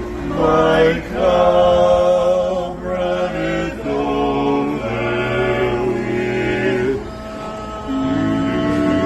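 Barbershop quartet singing a cappella: four voices in close harmony holding sustained chords that shift every second or few, with a short lull about seven seconds in.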